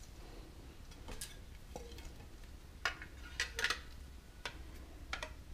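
Handling noise of a small circuit board and a sheet of film in gloved hands: a scattering of sharp little clicks and scrapes, with the loudest cluster about three and a half seconds in, over a low steady hum.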